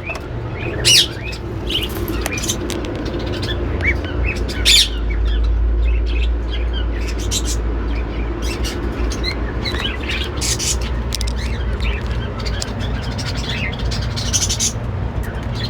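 Caged pet birds chirping and squawking, many short high calls overlapping, with two louder squawks about a second in and near five seconds. A steady low rumble runs underneath.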